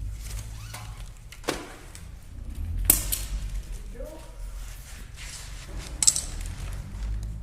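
Sharp metallic clanks and knocks from undoing the tie-down straps and hardware on a motorcycle shipping crate. There are three distinct knocks, the loudest about three seconds in, over a low steady rumble.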